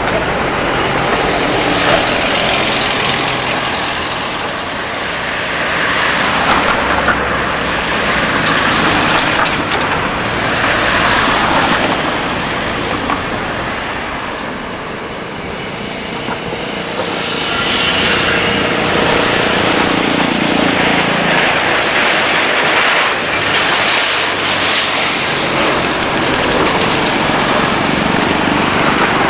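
Motorcycle engines running, with continuous vehicle noise that eases off around the middle and grows louder again.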